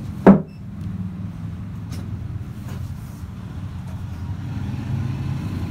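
A steady low hum runs under cloth being shifted and folded on a sewing table. One sharp thump, the loudest sound, comes just after the start.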